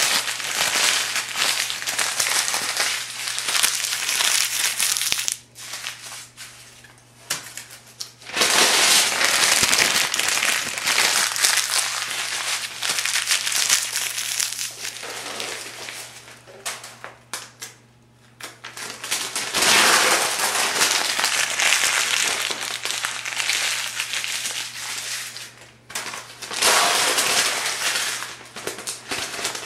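Thin phone book pages being crumpled by hand, a dense crackling in long stretches broken by short pauses about six, seventeen and twenty-six seconds in.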